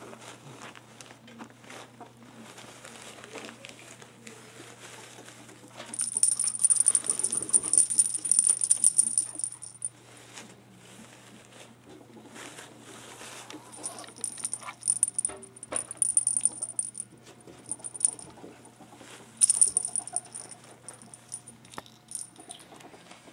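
Small jingle bell on a hanging pet toy jingling as playing ferrets shake it, in three bursts: about four seconds, then about four seconds more, then a shorter one, with quiet scuffling between.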